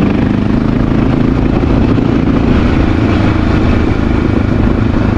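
Honda XR650L's air-cooled single-cylinder engine running steadily as the motorcycle is ridden along a dirt trail.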